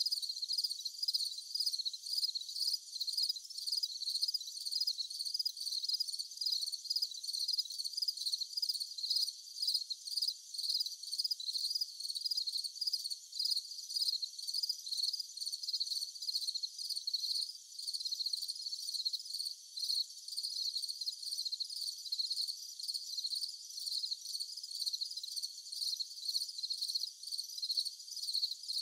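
High-pitched insect chirping, like crickets, pulsing evenly and without a break.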